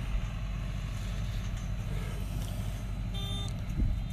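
Engine running steadily with a low rumble. About three seconds in there is a short, clear beep, and a dull thump follows near the end.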